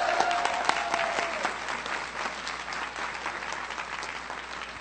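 Crowd applause, dense clapping that is loudest at the start and slowly dies down.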